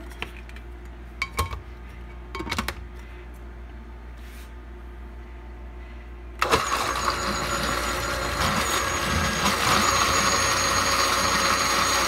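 A few light clinks, then a KitchenAid countertop blender switches on about halfway through and runs steadily, blending eggs and cornstarch into pudding batter.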